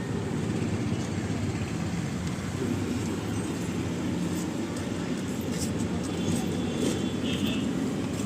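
Mahindra XUV300 engine idling steadily, with a few faint light clicks in the second half.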